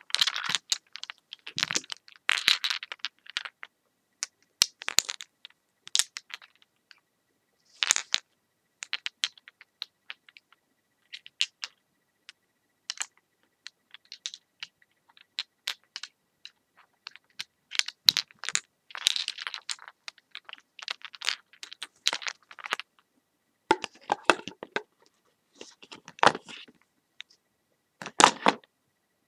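Close-up ASMR trigger sounds: irregular crackles, clicks and scratches in short clusters, with brief silent gaps between them.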